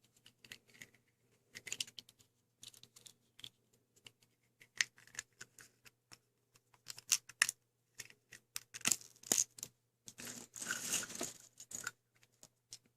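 Small plastic and metal vending-machine charms clicking and clattering as they are picked through by hand, with brief rustling. The light clicks come irregularly and bunch up about two-thirds of the way in.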